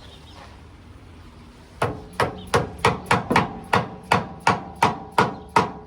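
A hammer striking steel about a dozen times, roughly three blows a second, each blow ringing; the strikes start about two seconds in. It is tapping the replacement hydraulic lift cylinder round to turn it into place.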